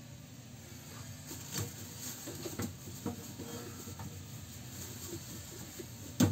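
Rummaging in a refrigerator for green apples: scattered small knocks and rustles, then a single sharp thump near the end as the fridge door shuts.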